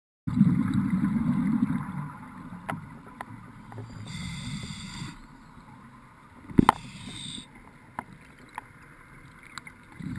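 Underwater scuba breathing heard through the camera housing: a rumble of exhaled bubbles at the start and again at the end, with a hiss of inhaling through the regulator in between. Scattered sharp clicks, the loudest about two-thirds of the way through.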